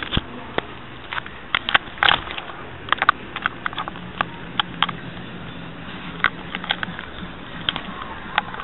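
Irregular sharp clicks and light knocks, about twenty in all and unevenly spaced, over the steady hiss and faint hum of a low-quality recording.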